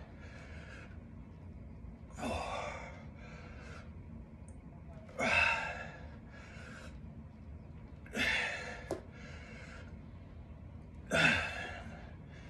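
A man breathing hard from the effort of weighted alternating lunges: four forceful exhales, one about every three seconds, each followed by a shorter, quieter breath.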